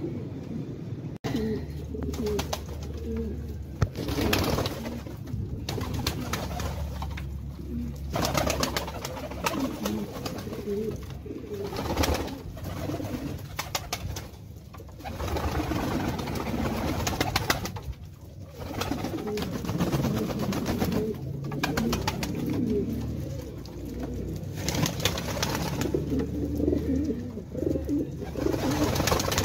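Domestic pigeons cooing, several birds at once, with a rustling hiss that swells and fades every few seconds.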